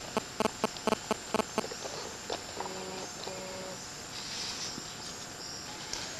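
Tropical forest insects shrilling steadily at a high pitch. A quick run of sharp clicks, about four or five a second, comes in the first second and a half, and two short pitched calls about three seconds in.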